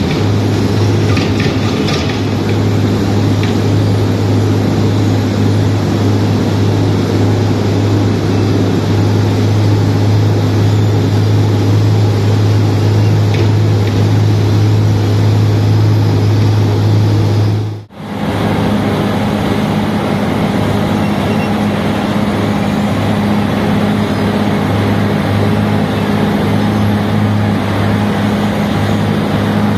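Wirtgen W 150 CF cold milling machine working: a loud, steady diesel engine drone with a low hum under the grinding of the milling drum cutting asphalt. The sound drops out for a moment about two-thirds of the way through, then resumes.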